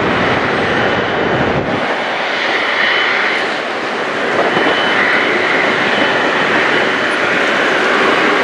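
Steady rushing jet engine noise from an Airbus A319 airliner on approach to land.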